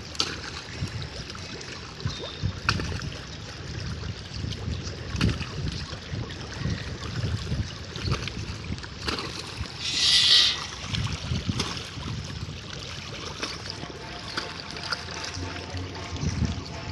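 Water splashing and slurping as a dense crowd of fish gape and feed at the surface, over a low rumble. About ten seconds in there is a brief loud high-pitched sound.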